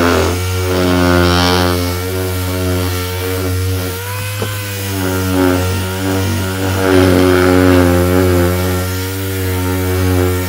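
Electric power sander running with 180-grit paper on a plastic wheel trim: a steady motor hum with a gritty sanding rasp, its pitch wavering slightly as it works.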